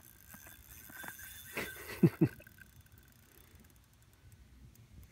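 Spinning reel on a short ice-fishing rod being cranked while a hooked fish is played. A thin whine lasts a second or so, and two sharp knocks come close together about two seconds in.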